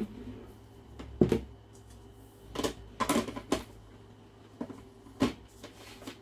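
Stainless steel mixing bowl being set onto a stand mixer's base and the mixer head with its beaters lowered into it: about five separate clunks and knocks spread over a few seconds, the mixer not yet running.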